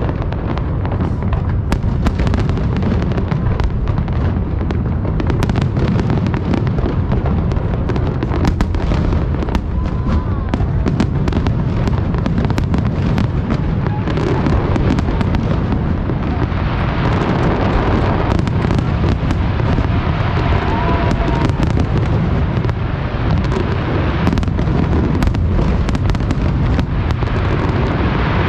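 Large aerial fireworks display: shell bursts booming one after another with sharp pops and crackling, and a thick spell of crackle about halfway through.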